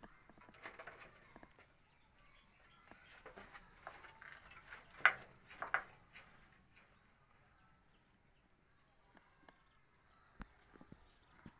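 Faint outdoor ambience of small birds chirping, with scattered light clicks and scuffs; the loudest is a sharp click about five seconds in, followed by a second shortly after.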